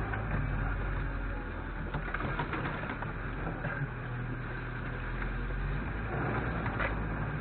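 A vehicle engine running at a steady low pitch under a noisy rumble, typical of driving off-road.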